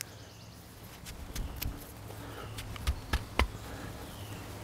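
Handling noise from a braided climbing rope and a carabiner: a handful of light clicks and rustles as the knot is worked and the rope is held. Faint bird chirps and a low steady hum sit underneath.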